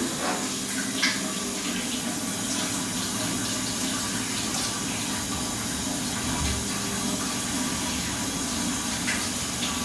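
Water running steadily from a tap that has been opened to draw hot water from a combi boiler, a constant rush with a faint low hum beneath it.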